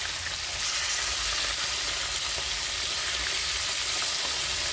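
Mackerel deep-frying in hot oil: a steady sizzling crackle that grows a little louder about half a second in.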